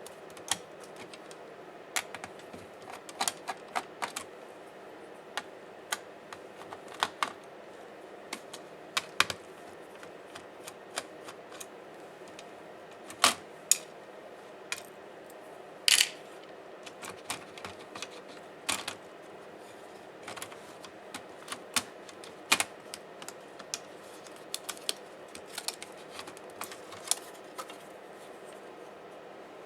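Irregular clicks and taps of tools and small parts being handled while a Dell Latitude 5480 laptop is taken apart, a few sharper knocks among them, over a steady faint background hum.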